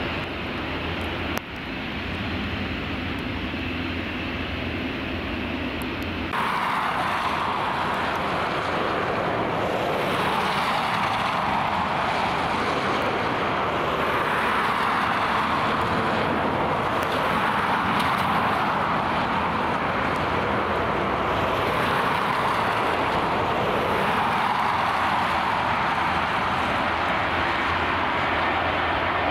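Jet airliner engine noise. First a low steady rumble from airliners on the runway. About six seconds in the sound changes abruptly to the steady, noisy sound of an Aer Lingus Airbus A320 on final approach, which swells and eases in level.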